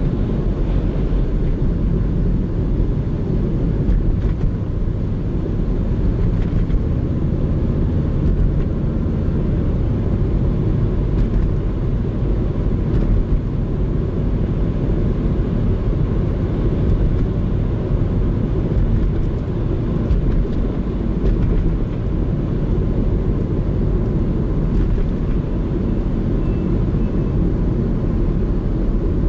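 Steady engine and road noise from inside the cabin of a Subaru Legacy BH5 wagon driving along at an even pace, its 2.0-litre flat-four boxer engine running under the tyre noise.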